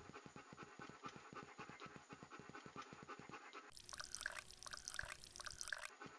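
Faint cartoon sound effects of a dog: quick, rhythmic panting, then, a bit past halfway, about two seconds of a trickling stream as the dog urinates.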